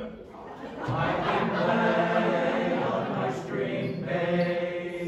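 Teenage madrigal choir singing a cappella. The voices drop away briefly and come back together about a second in.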